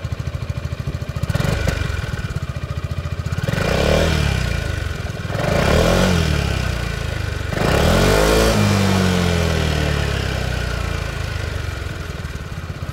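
2022 Yamaha Xmax 300 SP scooter's 292cc liquid-cooled single-cylinder four-stroke engine idling through its stock exhaust. It gives a small rev near the start, then three bigger throttle blips about two seconds apart, each rising and falling, the last the longest, before settling back to idle.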